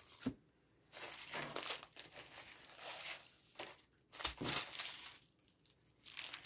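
Clear plastic bag crinkling and a diamond-painting canvas's paper and film rustling as they are handled, in a series of short bursts.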